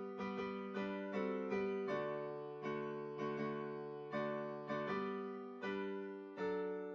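Slow, gentle piano music: chords struck about every half second to second, each one ringing and fading before the next.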